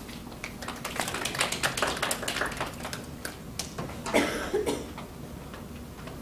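A small classroom audience clapping at the end of a speech: a quick patter of claps that thins out after about three seconds. A brief louder rustle about four seconds in.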